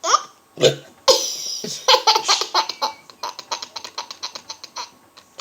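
A baby laughing hard in a long run of quick, rhythmic laughs, about four or five a second, starting about a second in. Two short, sharp sounds come just before it.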